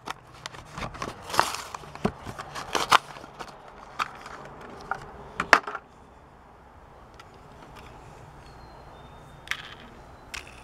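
Clear plastic blister pack crinkling, crackling and popping as fingers pry and peel it off its card, with many sharp irregular clicks for about the first six seconds. After that, only a couple of faint handling clicks.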